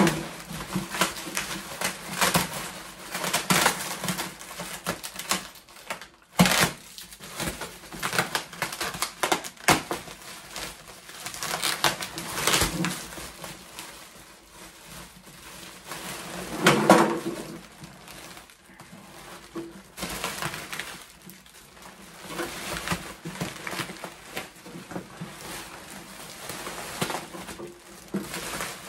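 Clear plastic wrapping crinkling and rustling as it is pulled off and bunched up by hand, with irregular crackles and a few louder bursts.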